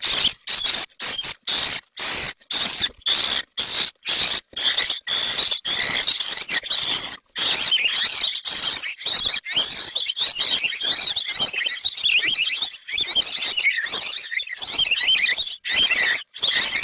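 Baby birds chirping, many shrill calls overlapping, cut into short pieces by brief silent gaps about twice a second.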